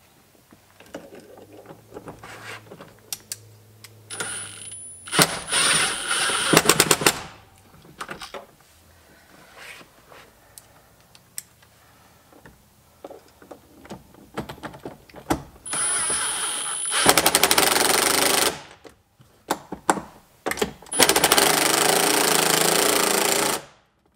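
Cordless impact driver running bolts in, in three bursts. Each starts with a brief high motor whine, then the rapid hammering rattle of the impact mechanism. The bursts come about four seconds in, around sixteen seconds and just after twenty seconds, with small handling clicks between them.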